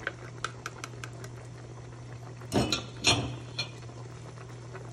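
A metal ladle clicking and knocking against a pot of simmering pata tim (braised pork hock), with light clicks in the first second and two louder knocks about two and a half and three seconds in, over the bubbling sauce and a steady low hum.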